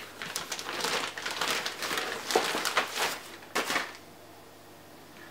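Plastic mailer bag rustling and crinkling in rapid bursts as a pair of boots is pulled out of it, stopping about four seconds in.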